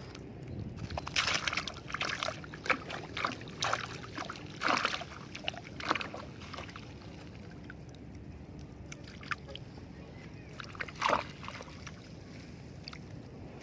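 Water splashing and sloshing in irregular bursts, several in the first six seconds and one strong splash about eleven seconds in.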